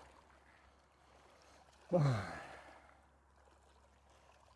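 A man sighs about two seconds in: a short voiced exhale that falls in pitch, its breath trailing off over about a second against a faint, steady background.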